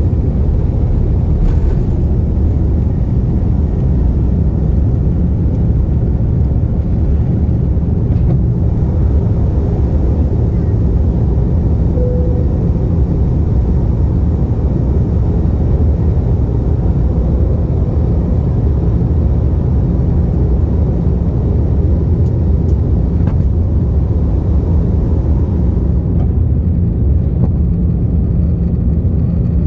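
Airbus A330 jet engines at takeoff thrust, heard inside the cabin over the wing during the takeoff and initial climb: a loud, steady roar with a deep rumble underneath.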